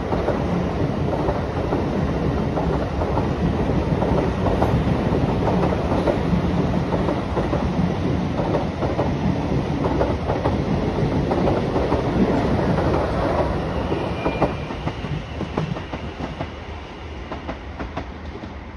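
A passenger train running past close beneath: steady running noise, with the wheels clicking over the rail joints and pointwork. It fades over the last few seconds as the train moves away.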